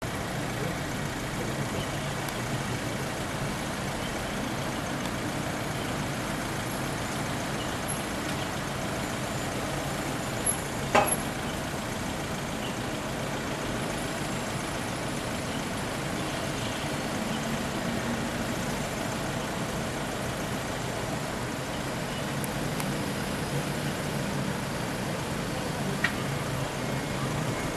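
Tow truck engine idling steadily during a tow hook-up, with two sharp metallic knocks about ten seconds in and another near the end.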